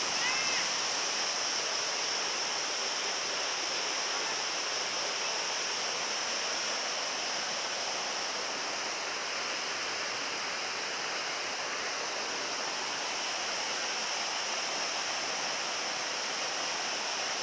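Steady rush of a waterfall, an even noise of falling and splashing water.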